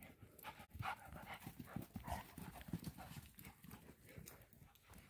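Faint, irregular patter of footfalls on dry grass and dirt as dogs play chase, with a dog panting.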